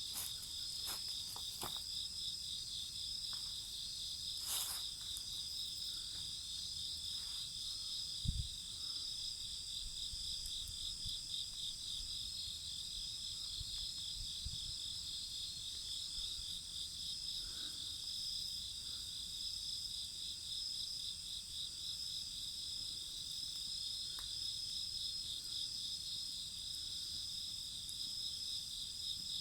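Chorus of crickets trilling steadily in fast high pulses, with scattered crackles and pops from a burning bonfire and one low thump about eight seconds in.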